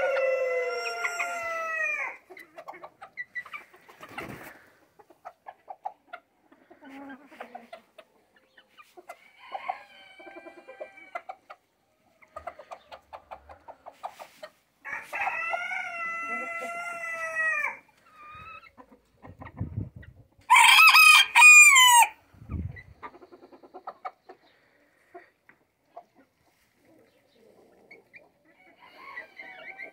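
Bantam roosters crowing: a long crow at the start, a fainter one about ten seconds in, another about fifteen seconds in, and a louder, higher-pitched crow just past twenty seconds. Hens cluck quietly in between.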